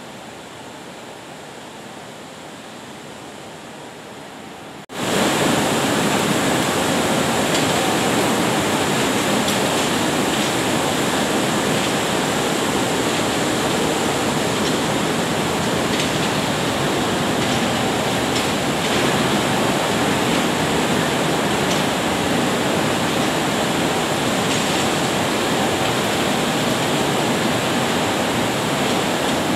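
Steady rushing noise of tea-processing machinery running. It jumps abruptly much louder about five seconds in, with a faint high whine on top.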